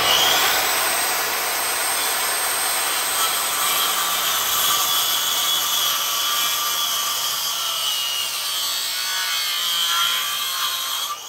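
Corded circular saw cutting through a 2x6 pine board: the motor whines up to speed at the start, cuts steadily along the board for about eleven seconds, then the blade winds down with a falling whine at the end.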